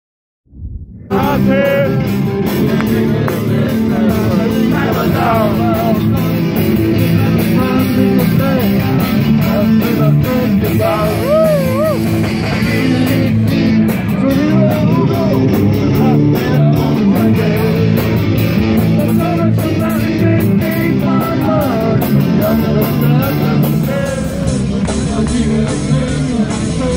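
Live rock band playing: electric guitars with a man singing into a microphone. The music starts suddenly about a second in and runs on loudly.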